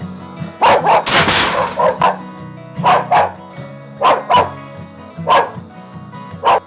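A dog barking over guitar music. A quick run of barks comes in the first couple of seconds, then the barks come in pairs and singly, about a second apart.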